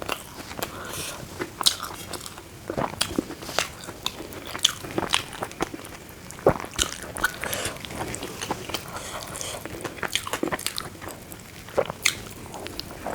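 Close-miked chewing and biting of food: a steady run of irregular crunches and wet mouth clicks.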